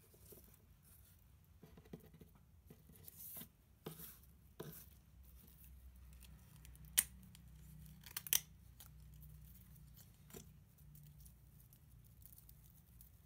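Hands handling small bulbs and a plastic mesh bulb bag on a paper-lined tray: soft rustling and tearing of the mesh, with scattered sharp clicks. The loudest click comes about seven seconds in, and two more come just after eight seconds.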